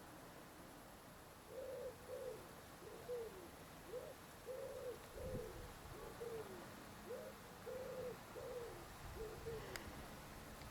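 A bird giving a run of low, hollow cooing notes, about a dozen over some eight seconds, some notes falling at the end.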